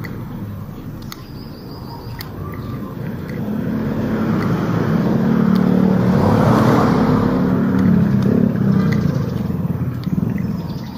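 A motor vehicle drives past, its engine and tyre noise growing louder over a few seconds, loudest about six to seven seconds in, then fading away.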